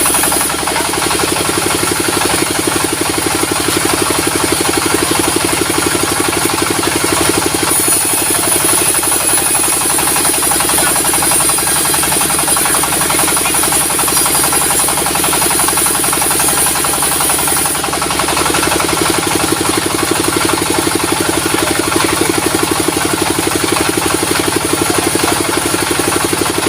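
Sawmill saw running steadily while ripping a log lengthwise into boards, over the drone of its engine. A high-pitched hiss grows stronger for two long stretches, in the first third and again in the last third.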